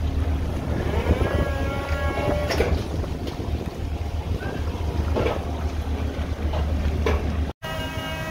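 Steady low hum of a purse-seine fishing vessel's engine and net-hauling machinery, with wind and sea wash, scattered knocks, and a faint whine that comes and goes. The sound drops out for an instant near the end, after which a steadier whine continues.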